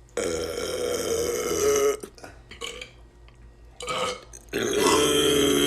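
A man burping: a long drawn-out belch, then a short one, then another long belch starting near the end.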